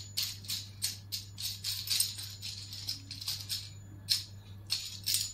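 Small mic clip being screwed together by hand: a run of short scratchy clicks, about three or four a second, as the threaded parts are turned.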